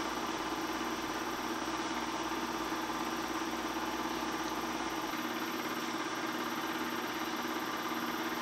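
Bell & Howell 253-A 8mm film projector running: a steady mechanical hum with a constant whir that does not change.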